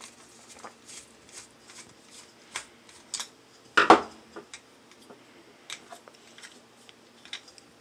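A Phillips screwdriver backing a screw out of a plastic iMac G3 speaker housing: a run of small clicks and scrapes. About four seconds in comes one louder clack as the screwdriver is laid on the wooden bench, followed by light handling of the plastic housing.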